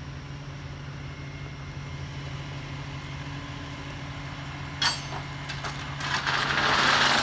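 Flatbed tow truck's engine idling, a steady low hum, with a sharp click about five seconds in and a louder rushing noise building over the last second or so.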